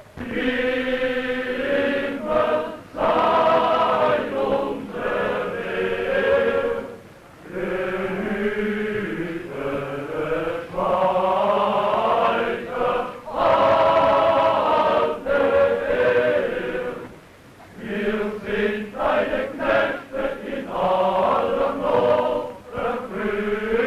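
A men's choir singing a slow song in long held phrases, with brief breaths between them. The sound is thin and muffled, as on an early sound-film recording.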